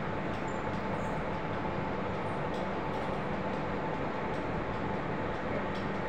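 Steady background rumble and hiss with a faint constant tone, unchanging throughout.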